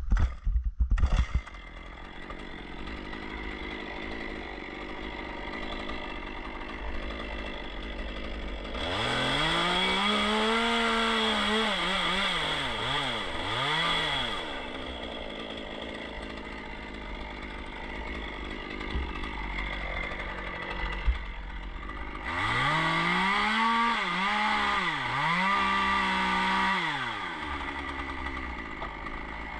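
Two-stroke chainsaw idling, then running up to full throttle twice for several seconds each, its pitch dipping and recovering as if under load in the wood. A few loud knocks come in the first second or so.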